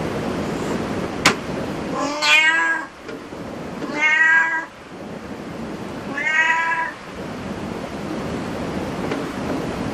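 Cat meowing three times, each call under a second long, over a steady background hiss. A single sharp click comes shortly before the first meow.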